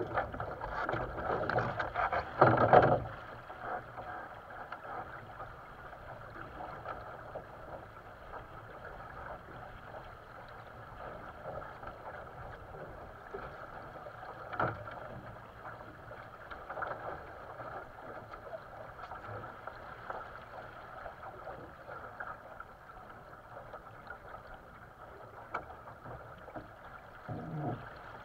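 Water washing along the hull of a sailing dinghy under way, with heavier splashing for the first three seconds and then a steady, softer wash with a few small knocks from the boat.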